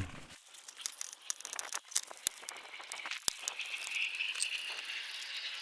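Foil-faced foam insulation crinkling and crackling as it is pressed by hand onto a plastic engine cover, with irregular small clicks and two sharper taps.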